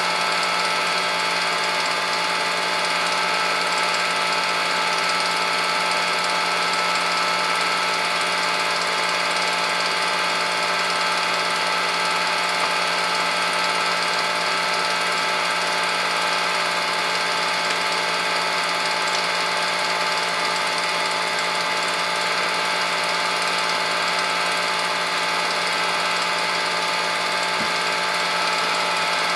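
Film projector running steadily: a constant mechanical whir with a fixed pitch, unchanged throughout.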